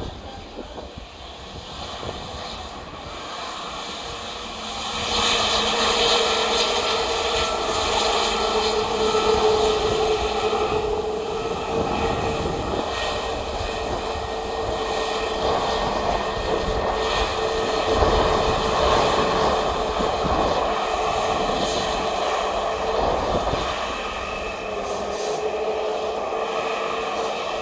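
Airbus A321neo's CFM LEAP-1A turbofan engines running at taxi power: a steady whine over a broad rush, which gets louder about five seconds in and eases slightly near the end.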